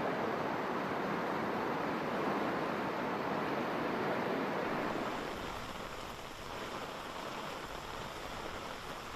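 Steady rushing of water, most likely floodwater. About five seconds in it eases off and a low rumble comes in.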